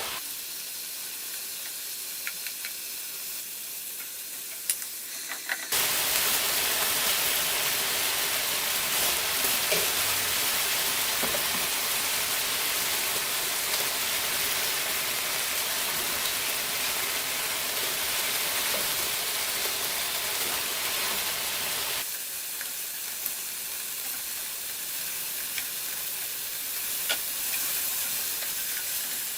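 Soy-marinated beef sizzling in a hot skillet: a steady frying hiss that gets suddenly louder about six seconds in and falls back to the quieter level about 22 seconds in, with a few light clicks.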